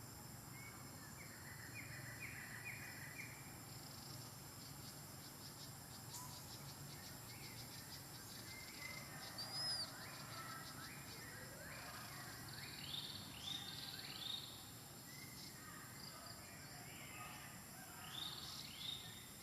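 Faint outdoor ambience of short, high chirping calls in small clusters, several louder ones near the middle and near the end, over a steady faint insect buzz.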